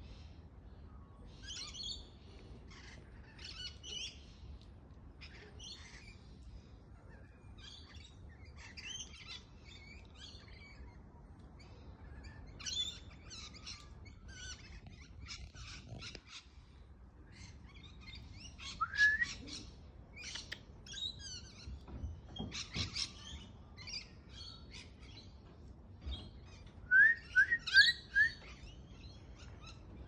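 Wild birds chirping and chattering continuously in the treetops. About two-thirds through comes a single rising whistle, and near the end four quick, loud rising whistles in a row, a person whistling to call the wild parrots.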